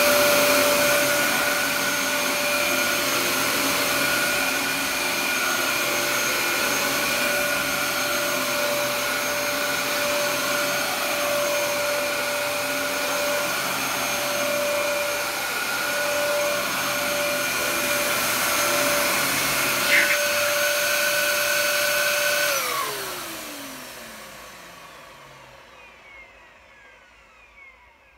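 Dyson DC07 upright vacuum cleaner running steadily on carpet with a high motor whine and airflow hiss, sucking up debris into its bin. A sharp click comes about 20 seconds in, and a couple of seconds later the vacuum is switched off: the motor winds down with a falling whine that fades away over several seconds.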